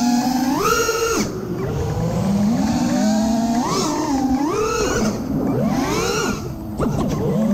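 A 5-inch FPV quadcopter's four T-Motor F60 Pro IV 1950 kV brushless motors whining, the pitch jumping up and falling back with each throttle punch, with several quick swoops near the end.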